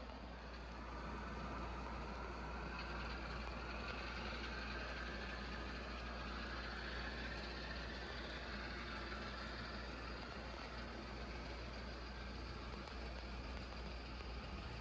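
HO-scale model train running along the layout's track: a steady running noise, with a faint whine that slowly rises and then falls in pitch.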